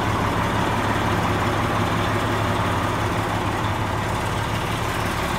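Big Detroit diesel engine of a 1999 Oshkosh 4x4 dump truck idling steadily with a low hum.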